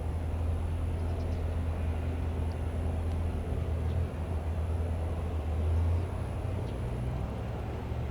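Jet aircraft engines running steadily on the airfield: a low rumble with a faint high whine, swelling briefly about six seconds in.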